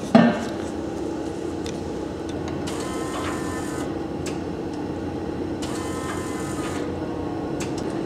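A steady hum, with two whirring buzzes of about a second each, about three and six seconds in, that start and stop sharply: the rebuilt electric fuel pump running briefly as it is primed, the pump having been repaired for a leaking housing.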